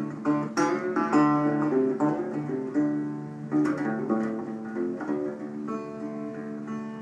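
A guitar plays an instrumental break between sung verses of a blues song: a run of plucked notes over a held bass note.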